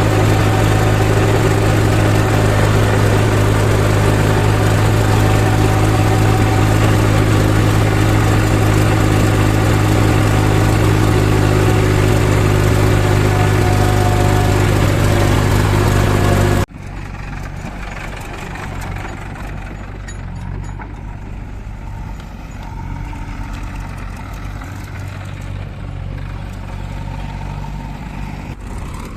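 Diesel engine of heavy earthmoving machinery running steadily and loudly with a deep, even hum. About two-thirds of the way through the sound cuts abruptly to a quieter, more distant engine.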